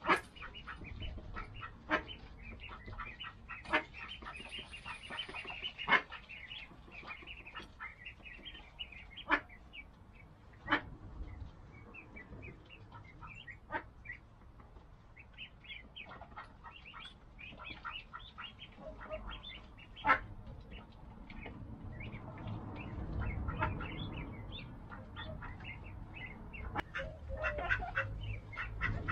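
Mallard duck family calling: scattered short quacks from the adult ducks and peeping from week-old ducklings, with a few louder single calls. A low rumble swells about two-thirds of the way in.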